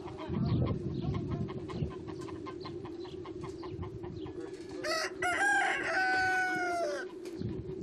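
Rooster crowing once, a single long call of about two seconds that comes near the end, after a stretch of rapid hen clucking.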